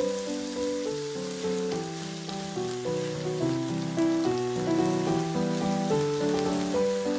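Instrumental background music, a melody of held notes over chords, with a faint steady sizzle of beef and vegetables frying in a pan beneath it.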